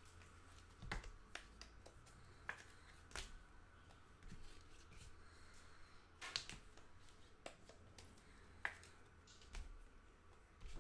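Trading cards being handled and sorted on a table: faint, irregular clicks and taps, about ten of them, as cards are picked up and set down.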